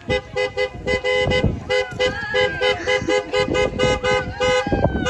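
Car horn honking in a long run of short, quick toots, about three a second with uneven gaps.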